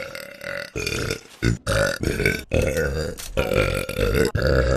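A girl belching, a run of long, drawn-out belches one after another with short breaks between.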